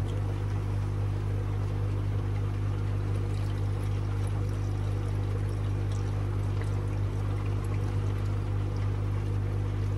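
Water pouring steadily from a plastic jug into a pond pump's pipework, filling it to prime the pump, over a steady low electrical hum.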